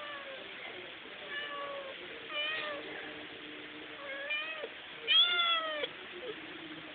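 Domestic cat meowing five times in a row; the last meow, near the end, is the loudest and longest.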